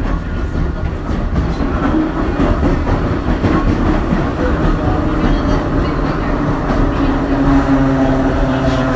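Hakone Tozan Railway Moha 1 electric railcar standing with its equipment running: a steady low rumble, joined about seven seconds in by a steady hum of several tones.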